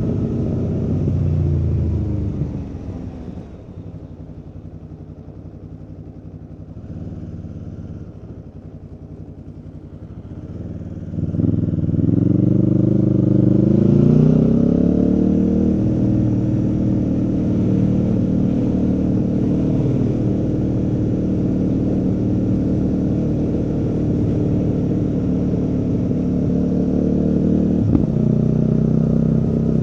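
Aprilia Tuono V4's V4 engine heard from the rider's seat. Its note falls as the throttle closes about two seconds in, and it runs quietly for several seconds. About eleven seconds in the throttle opens and the pitch climbs for a few seconds before settling into steady cruising, with a single sharp click near the end.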